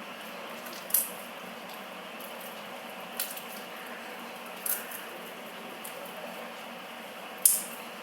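Metallic glue slime being kneaded and stretched by hand, giving four brief sharp squelching pops, the loudest near the end, over a steady hiss.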